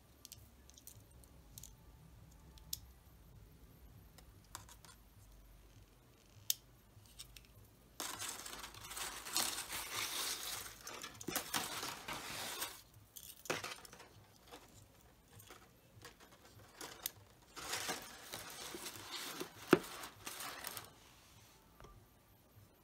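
Handling noise from a thin coated-wire LED fairy light string and its plastic battery box: bursts of crinkly rustling and scraping with scattered light clicks, and one sharp click about three seconds before the end.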